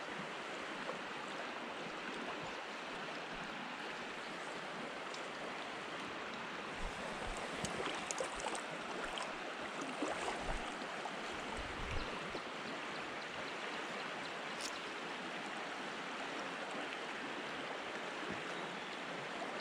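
Steady rushing of a shallow creek flowing over riffles. A few faint clicks come around the middle.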